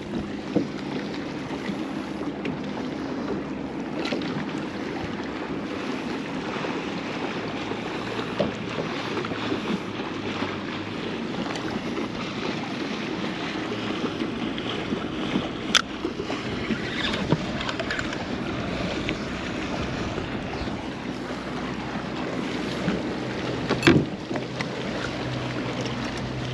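Wind and small waves lapping steadily around a kayak, with wind on the microphone. A few sharp clicks stand out, the loudest about two-thirds of the way through and again near the end.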